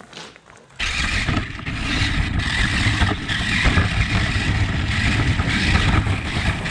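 Radio-controlled toy car running, its motor and wheels making a steady noisy drone that starts abruptly about a second in.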